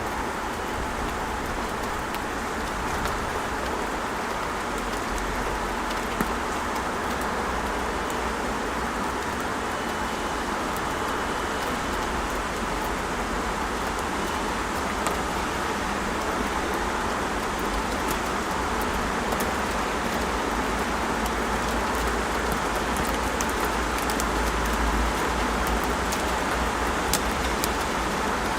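Steady city rain: an even hiss of rain with scattered drops ticking, over a low, constant rumble of road traffic.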